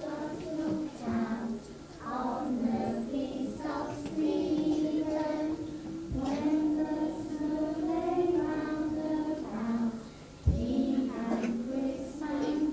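A group of nursery-age children singing a song together, in long held notes. A single thump about ten and a half seconds in.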